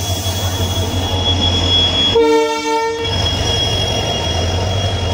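WDP4B diesel locomotive's 16-cylinder two-stroke engine running with a steady low hum as it stands at the platform. A short horn blast sounds about two seconds in.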